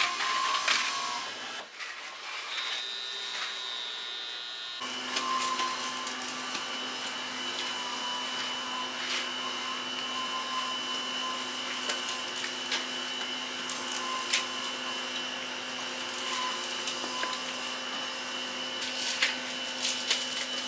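Steady machine hum with a low tone and a high whine, setting in about five seconds in, under scattered light clicks and knocks.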